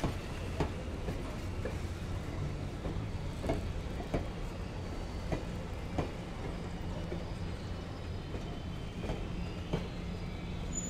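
Railroad passenger cars rolling along the track: a steady low rumble with wheels clicking over rail joints at uneven intervals.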